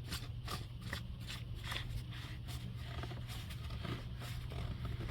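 Oil filter being screwed on by hand: faint, repeated short scraping and rubbing of the threads as it is turned, over a steady low hum.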